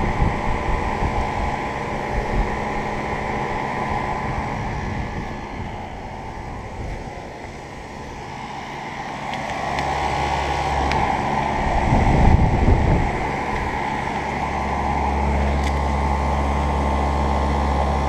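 Ducane heat pump outdoor unit running in heat mode: a steady hum of the compressor and condenser fan. It grows louder and deeper in the second half as the microphone comes up close to the cabinet, with a brief low rumble about twelve seconds in.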